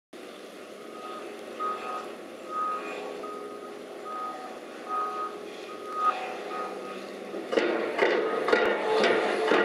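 Heavy plant running, with a reversing alarm beeping steadily at an even pace. Near the end a loud clatter of repeated metallic knocks starts as the piling rig's drilling bucket is raised and shaken to drop its spoil.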